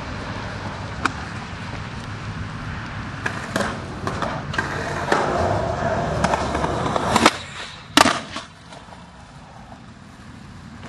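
Skateboard wheels rolling on concrete with a few sharp clicks. About seven seconds in, a sharp crack from the board is followed a second later by the loudest hit and a short clatter as board and skater slam onto the ground from a handrail attempt.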